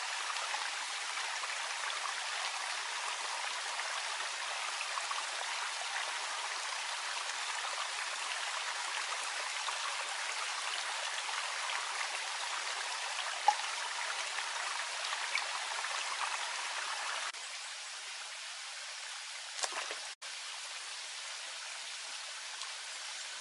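Water running in a small, shallow stream channel, a steady trickling rush. A single sharp tap comes a little past halfway, and the running water drops a little quieter about two-thirds through, with a few light knocks soon after.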